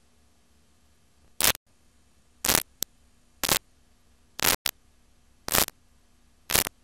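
Six short bursts of static hiss, about one a second, over a faint steady hum. This is the noise of an analog video feed with no signal, its picture gone to snow.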